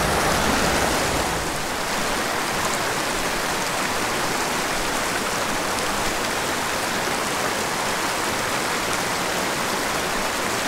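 Small mountain creek rushing and splashing over rocks in shallow riffles, a steady hiss of running water that is a little fuller in the first second or so.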